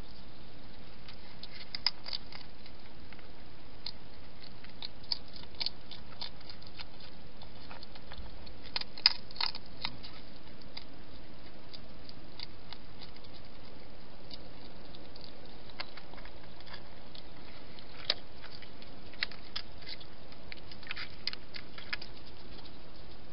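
Small, irregular clicks and crackles from a wild hedgehog close to the camera, coming in little clusters, the loudest about nine seconds in, over a steady background hiss.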